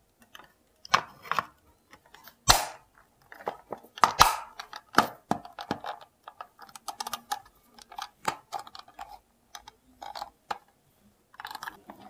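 Plastic hair dryer casing being fitted and pressed back together by hand: irregular clicks, creaks and knocks of the shell halves seating.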